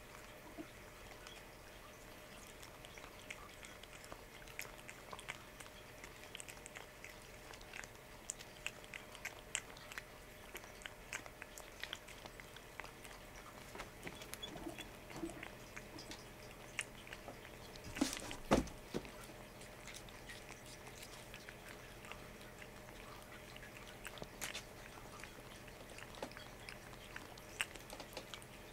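Domestic cat licking lickable paste treat from a squeezed tube: a run of small, wet tongue clicks and smacks at an uneven pace. A louder double knock comes about two-thirds of the way through.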